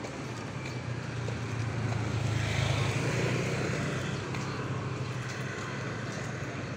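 A motor vehicle's engine running close by, growing louder to a peak about three seconds in and then easing off, as it passes, over street background noise.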